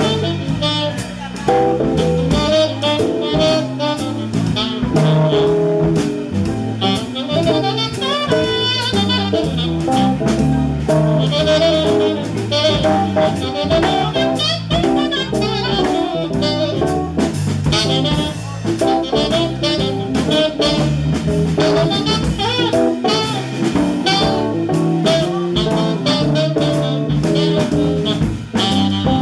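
A live jazz band playing: a saxophone line over drum kit and bass.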